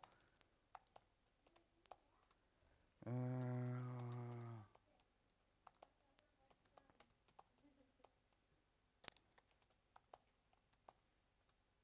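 Faint, scattered keystrokes on a laptop keyboard as commands are typed. About three seconds in, a man's voice holds one low, steady note for under two seconds, like a drawn-out "mmm".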